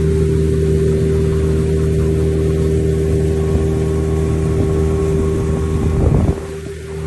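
An engine running at a steady speed, a continuous drone with a steady hum. About six seconds in there is a brief thump, after which it runs a little quieter.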